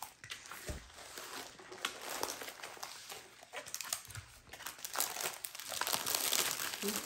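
Plastic packaging crinkling as it is handled: the protective plastic film over a diamond painting canvas and a plastic-wrapped bundle of drill bags. It gets louder from about five seconds in.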